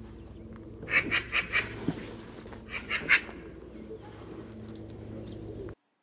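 Eurasian magpie giving its harsh chack-chack chatter: two short rattling series of notes, about a second in and again about three seconds in, over a steady low background hum.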